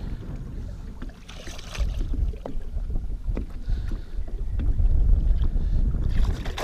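Wind rumbling on the microphone and water lapping at the side of an aluminium-style fishing boat, with a few sharp light clicks and knocks.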